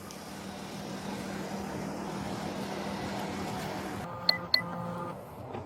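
Police radio transmitting a steady hiss with a low hum, which cuts off after about four seconds, followed by two short electronic beeps.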